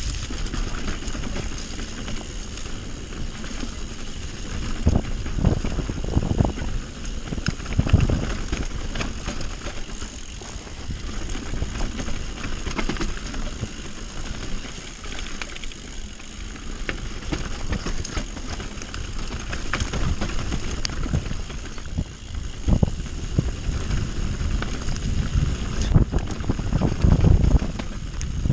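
Mountain bike riding fast down a dirt and stony singletrack: tyres rolling over the ground under a steady rumble, with the bike rattling and knocking over bumps and rocks. The heaviest knocks come about five to eight seconds in and again near the end.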